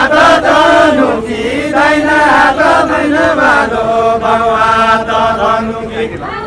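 Voices singing a Deuda folk song, a chant-like line with long drawn-out held notes, breaking off about six seconds in.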